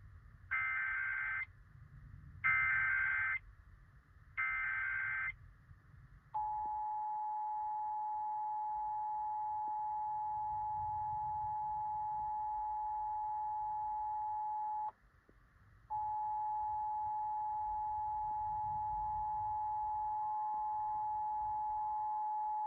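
Emergency Alert System test signal over the radio: three short bursts of screeching SAME header data, then the two-tone EAS attention signal (853 and 960 Hz) holding steady. The tone cuts out for about a second partway through and then resumes.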